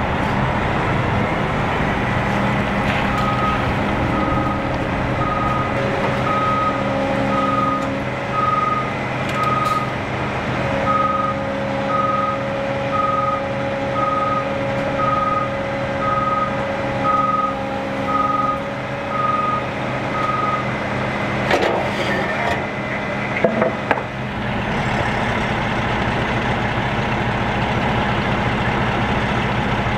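Fire ladder truck's reverse alarm beeping about once a second over its running engine, starting a few seconds in and stopping about two-thirds of the way through. A few sharp knocks follow soon after the beeping ends.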